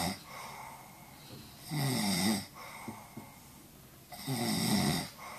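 A man snoring in his sleep: the tail of one snore, then two loud snores about two and a half seconds apart, each lasting under a second, with quieter breathing between.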